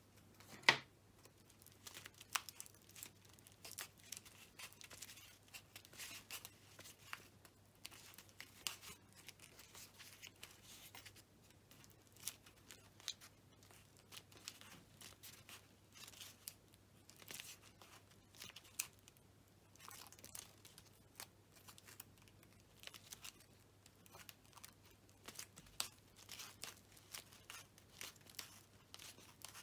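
Floral tape being stretched and wound around a foil-covered wire stem: faint, irregular crinkling and crackling of paper tape and foil, over a low steady hum.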